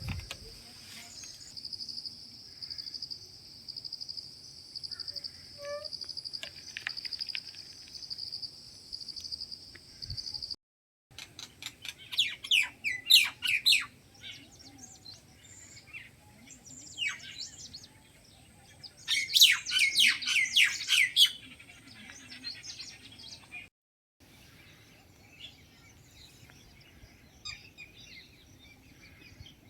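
Wild birds chirping and calling in quick clusters of sharp, high notes. For the first third, a steady high pulsing trill runs on its own before breaking off abruptly.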